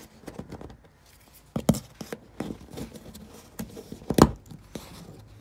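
A plastic trim-removal tool prying a Ford Transit's plastic interior wall panel away from the body: scraping with a few sharp clicks and snaps as the panel's clips give, the loudest about four seconds in.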